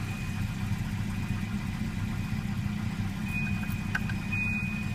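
A 1988 Volvo 240's B230F four-cylinder engine idling steadily just after being restarted with its idle air control valve disconnected. The idle is still higher than it should be, which the owner takes for a vacuum leak or a faulty MAF sensor.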